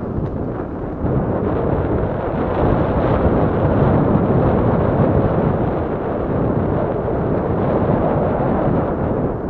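Wind buffeting the microphone and the rumble of a mountain bike ride over a trail. The rushing noise is loud and continuous, swells in the middle and eases near the end.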